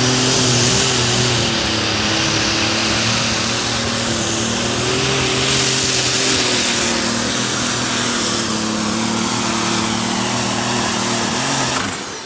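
Turbocharged Super Stock pulling tractor engine running flat out during a pull, with a high turbocharger whistle held steady above the engine note. Near the end the throttle comes off: the engine drops away and the whistle falls in pitch.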